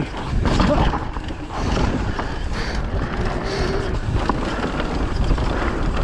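Specialized Levo e-mountain bike descending a wet dirt-and-rock trail: tyres rolling over the ground, with steady knocks and rattles from the bike and wind buffeting the microphone.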